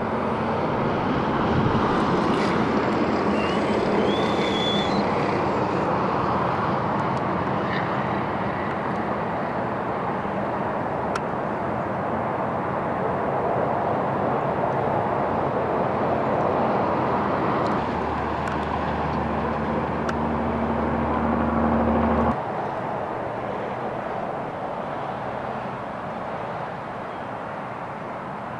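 Steady roar of highway traffic on Interstate 80, with no single vehicle standing out. A low hum joins it for a few seconds about two-thirds of the way through, then the noise drops suddenly to a quieter level.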